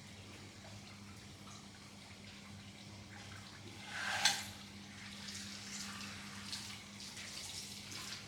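Faint splashing and trickling of water over a steady low hum, with a brief louder splash or rush about four seconds in.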